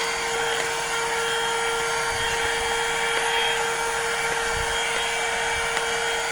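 Cordless handheld car vacuum cleaner running steadily, its motor making a constant high whine over rushing air, as it sucks dirt off a car floor mat.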